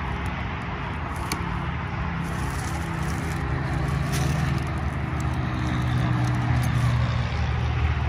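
Steady road traffic noise with a low engine drone that grows louder around six seconds in, as a vehicle passes. A couple of faint clicks are heard about a second and four seconds in.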